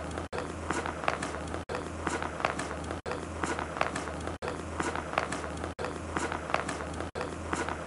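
Footsteps on hard-packed snow over a steady low hum. The same short stretch repeats, broken by a brief gap about every second and a half.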